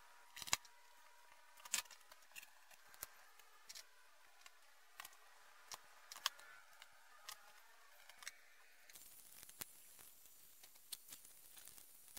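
Faint, scattered clicks and taps of small electronic parts and a plastic battery holder being handled and set onto a perfboard, the loudest about half a second in. A faint steady hiss joins about nine seconds in.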